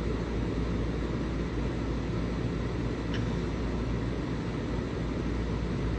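Steady low rumbling background noise with no speech, and a faint tick about three seconds in.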